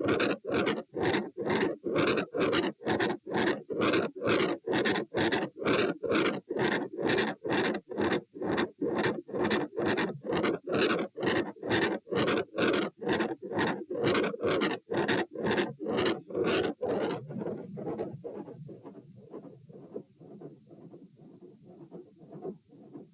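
Heart sounds recorded over the aortic area of the chest: loud, regular beats in an even rhythm, the very loud, high-pressure standing sound. About 17 seconds in, the beats drop abruptly to much quieter, duller beats, the quiet, low-pressure lying-down sound.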